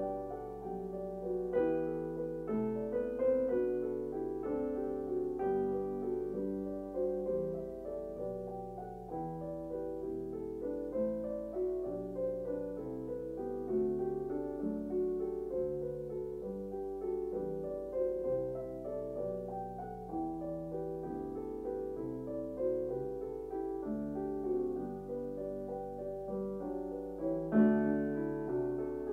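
Background music: a gentle solo piano piece, notes played one after another, swelling a little louder near the end.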